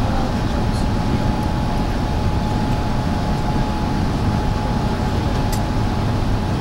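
Airbus A380's Engine Alliance GP7200 turbofans at take-off thrust during the initial climb, heard inside the cabin over the wing: a steady low rumble with a thin, steady whine above it.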